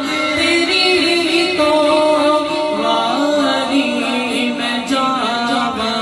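A man singing solo into a microphone, a slow melody of held notes that waver and bend in pitch.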